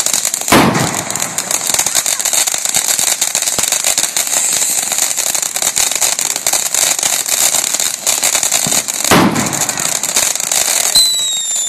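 Ground firework fountains spraying, a continuous dense crackle and hiss. Two loud bangs cut through it, about half a second in and about nine seconds in, and a short high whistle sounds near the end.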